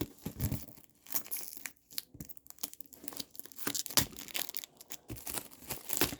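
Plastic packaging film being torn and crumpled by hand, in irregular crackles and short rips.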